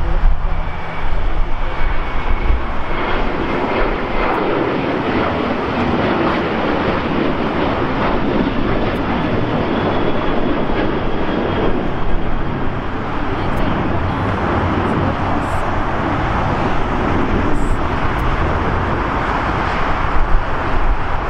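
Jet engines of a Boeing 737 airliner at takeoff power as it climbs out after lift-off: a loud, steady roar with a faint high whine at times.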